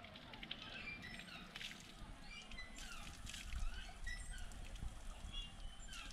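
Birds chirping repeatedly over the steady patter of spring water running from a spout and splashing as hands scoop it.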